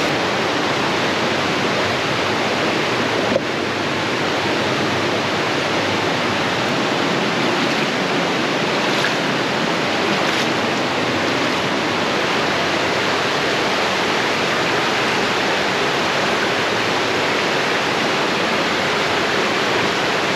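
Steady rush of stream water, with a single sharp knock about three and a half seconds in.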